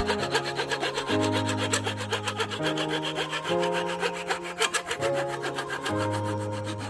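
Background music: sustained bass notes that change every second or so under a fast, even ticking beat.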